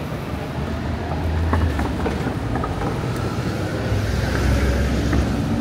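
Low rumble of a heavy vehicle passing in city street traffic, swelling twice, with a few faint clicks.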